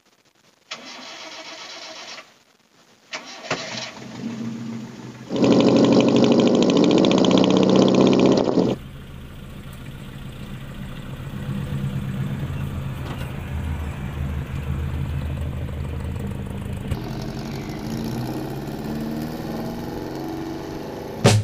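Engine of a 1986 Toyota Kijang Kotak pickup starting and then running, heard in several cut-together clips: a louder stretch about five to nine seconds in, then steady running.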